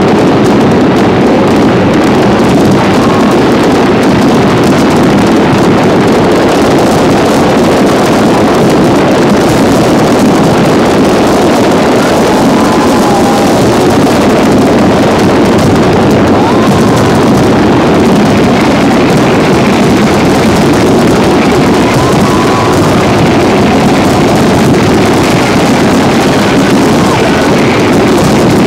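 Fireworks display at its height: a dense barrage of shell bursts running together into one continuous loud rumble.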